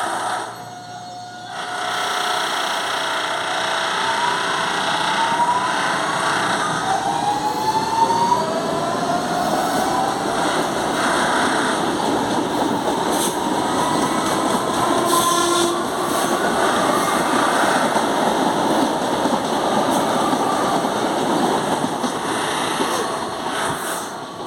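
Electric multiple unit of CPTM's Series 2070 running, its traction motors giving a whine of several stacked tones that climbs in pitch for several seconds as the train picks up speed, then holds steady, over a constant rumble of the moving train.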